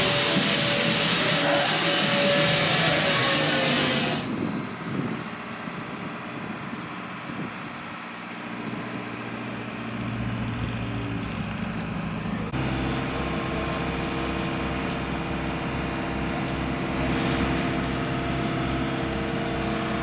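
Compressed-air spray gun hissing loudly for about four seconds, then cutting off. After that comes quieter mechanical sound, and from about twelve seconds an engine runs steadily with a low, even throb.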